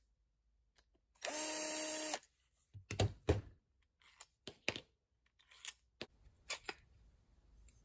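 Cordless driver spinning steadily for about a second as it backs out a through-bolt of an old Honda ATV starter motor. It is followed by a series of light metallic clicks and taps as the long through-bolts are pulled from the housing and set down.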